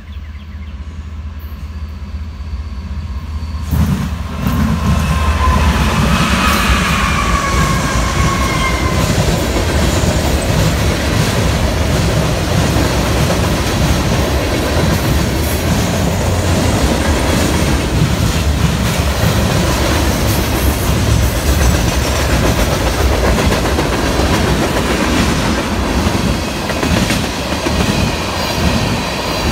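BNSF manifest freight train passing at track speed. The diesel locomotives' rumble builds and arrives loudly about four seconds in, with a whine that falls in pitch as they go by. Then a long string of freight cars follows with steady clickety-clack over the rail joints.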